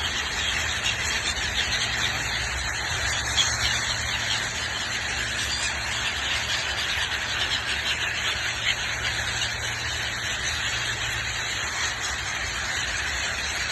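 Steady outdoor background noise, a low hum under an even hiss, with a few faint bird chirps now and then.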